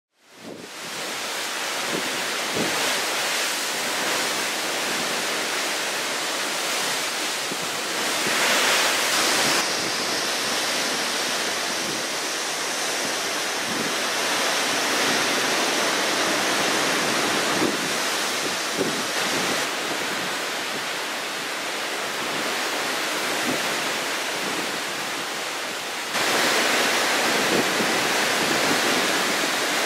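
Wind and the waves of a rough, whitecapped open sea: a steady rushing hiss that grows louder for a second or two about eight seconds in and again for the last few seconds.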